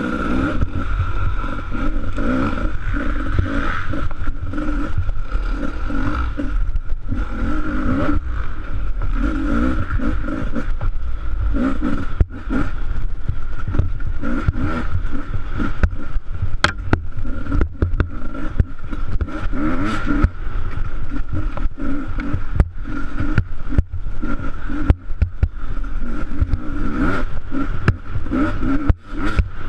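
Enduro motorcycle being ridden, heard from a camera mounted on the rider: the engine revs up and down, with a few brief dips where the throttle closes, and the bike knocks and clatters over bumps.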